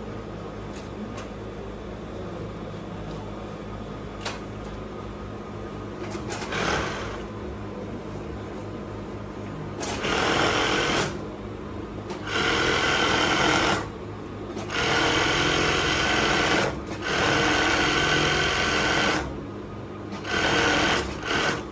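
Industrial flatlock sewing machine running in a series of runs of one to two seconds each, with short stops between them. The runs start about six seconds in, over a steady low hum.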